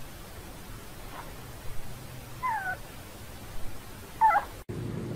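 Newborn puppy squeaking: a few short, high, thin cries that fall in pitch, a faint one about a second in, a clearer one halfway through and a wavering one near the end.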